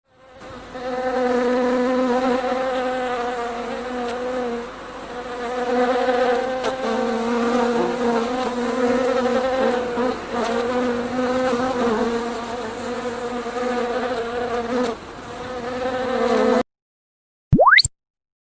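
Honey bee buzzing, a steady pitched hum that wavers in loudness and then cuts off suddenly. Near the end, a short loud tone sweeps sharply upward in pitch.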